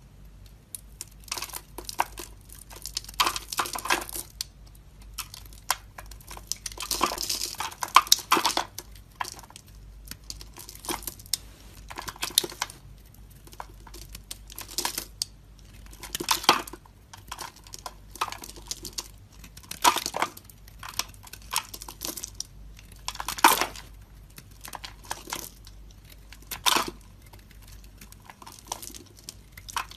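A knife cutting and scraping through a bar of dry soap. It makes crisp, crunchy strokes, some drawn out over a second or two and others short, one every second or few.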